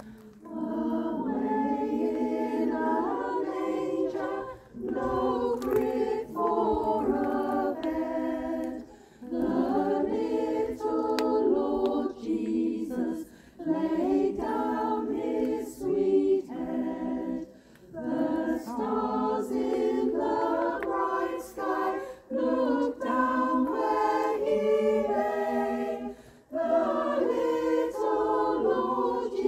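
A choir singing unaccompanied in phrases of a few seconds, with short breaks between them.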